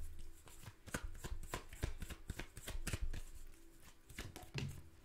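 A tarot deck being shuffled by hand: a fast, uneven run of soft card clicks and flicks.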